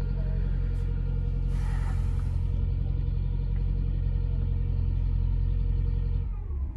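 Steady, low engine drone heard inside a car's cabin while the car rides a vehicle ferry; it drops away suddenly near the end. A short hiss rises and fades about one and a half seconds in.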